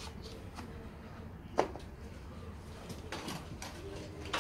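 Scattered knocks and clicks of handling work, with one sharp knock about a second and a half in and a scraping rustle about three seconds in.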